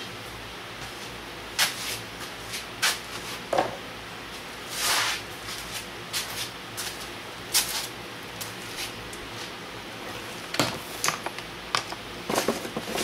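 Small hard objects being handled and set down: scattered clicks and knocks, a brief rustle about five seconds in, and a quicker run of taps near the end, over a steady room hum.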